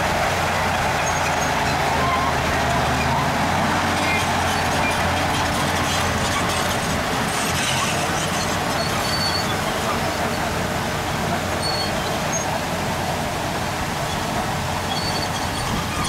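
Heavy diesel earthmoving machinery at work: a steady, loud engine running with a lower engine note that fades about four seconds in, and short high squeaks scattered through.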